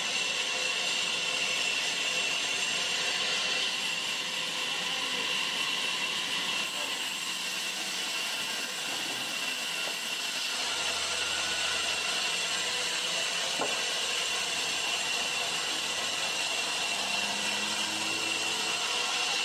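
Large band saw running and ripping a thick timber plank lengthwise, a steady hiss of cutting with a constant high whine from the blade.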